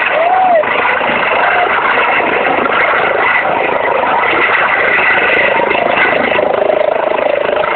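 Helicopter running close by, a loud steady rush of rotor and engine noise.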